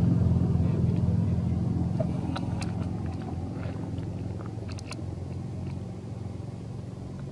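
A motor vehicle's engine running low and steady, fading gradually away. A few faint clicks come in the middle.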